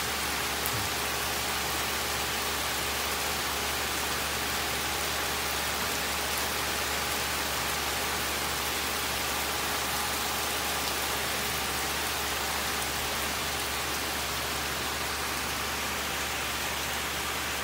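Heavy rain falling steadily on a lawn, garden soil and leafy trees, a constant even hiss of rain.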